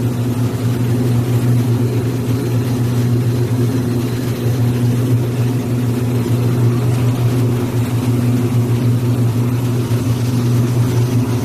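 Steady low hum of running processing machinery, unchanging in pitch and level.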